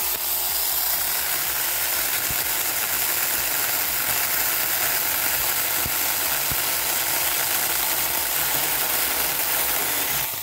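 Saker battery-powered mini chainsaw running steadily under load, its chain cutting through a cedar log.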